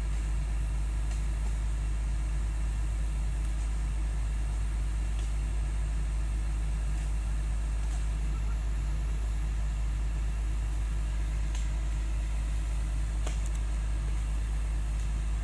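Hydraulic excavator's diesel engine idling steadily, with a few faint knocks now and then.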